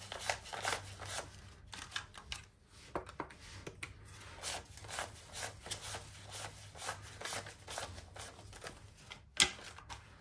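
Paper banknotes being counted by hand: a quick, irregular run of crisp flicks and rustles as the bills are peeled off one by one, with one sharper tap near the end.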